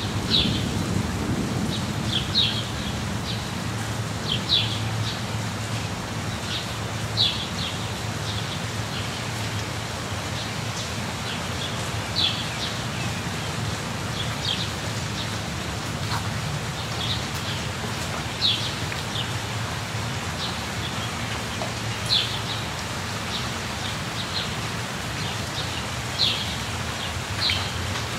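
Steady rain falling, a continuous hiss with a low rumble beneath it. A bird gives short high chirps every few seconds over the rain.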